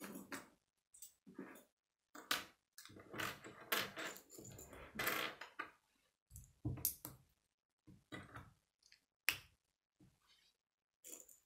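Plastic K'nex pieces clicking and clattering as they are handled and snapped together, in an irregular run of short rattles with a sharp snap about nine seconds in.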